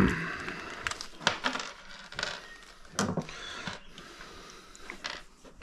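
Small screws and door-handle hardware being handled, giving scattered light clinks and knocks, with a sharper knock at the very start.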